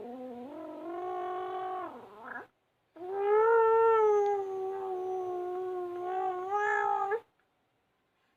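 A baby making a long, steady droning vocal noise that sounds like a pumpboat engine, twice: a shorter one, then after a brief pause a longer, louder one of about four seconds.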